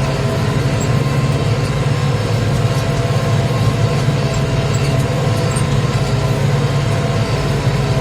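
Tractor engine running steadily under load while pulling a plough through the field, a loud, even hum.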